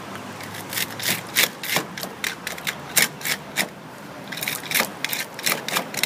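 Handheld Magic Fish Scaler scraping the scales off a scup in short, quick strokes, about three a second, with a brief pause near the middle.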